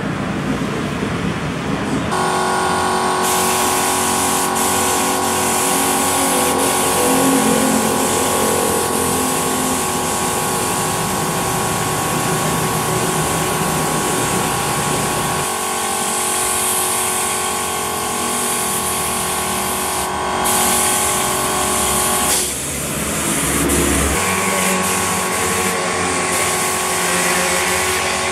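Air spray gun hissing as it sprays paint onto a motorcycle fuel tank, over the steady hum of an air compressor; the spraying starts about two seconds in and breaks off briefly a few times.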